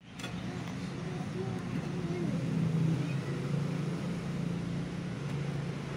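A steady low mechanical drone, swelling a couple of seconds in, with faint wavering voices under it.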